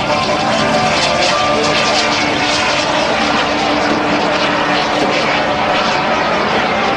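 Steady aircraft engine noise: a continuous loud rush with a low, unchanging hum under it.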